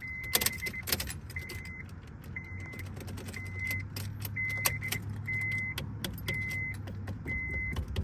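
A 2004 Honda Civic's warning chime beeping steadily, one short high beep about once a second, over a steady low hum. Small clicks and rattles come from hands handling the ignition switch under the steering column.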